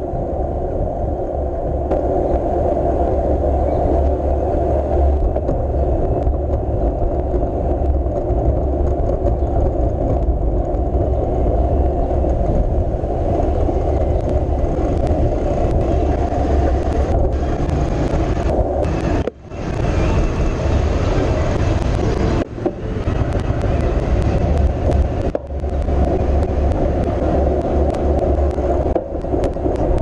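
Loud, steady rumble of wind and road noise on the microphone of a GoPro mounted on a moving bicycle. Scattered clicks come in during the second half, and the rumble drops out briefly three times.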